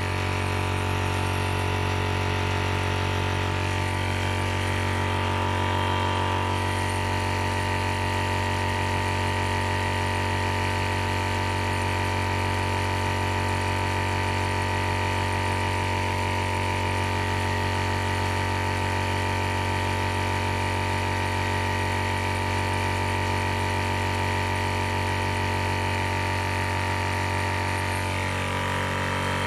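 AceEagle 300 bar high-pressure air compressor running steadily under load as it charges a PCP airgun's air cylinder, a constant hum with a higher whine over it.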